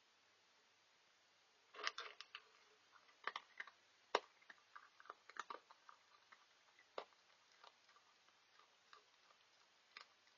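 Faint, irregular clicks and crunches: an animal eating dry food. The clicks come thickest about two seconds in, go on in a scatter for several seconds, then thin to a last few.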